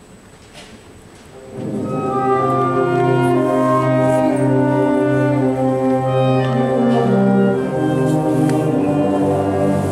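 Large school concert band comes in about a second and a half in, after a pause with only faint room noise, and plays loud held chords of brass and woodwinds.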